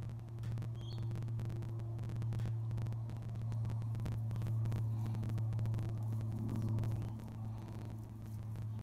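Steady low machine hum with scattered faint crackling clicks.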